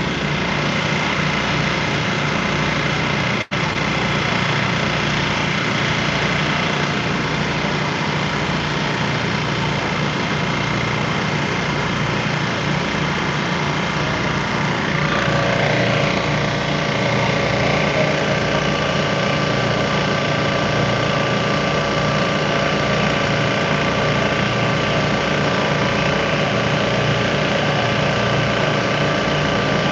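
Engines running steadily, a continuous drone with an even low throb. The sound cuts out for an instant near the start, and a higher steady hum joins about halfway through.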